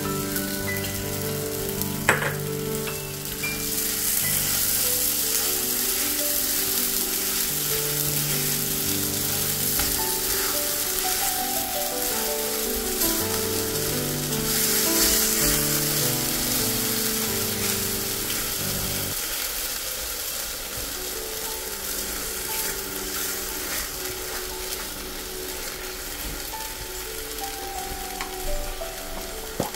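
Wheat rava kesari sizzling and bubbling in a pan as jaggery melts into it, stirred with a silicone spatula scraping the pan. Instrumental background music plays alongside.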